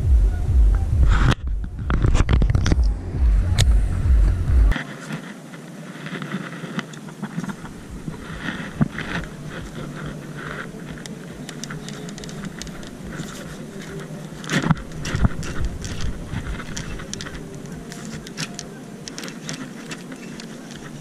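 Wind buffeting the microphone for the first four to five seconds, then many small scrapes and clicks of hands handling a baitcasting fishing rod and its line.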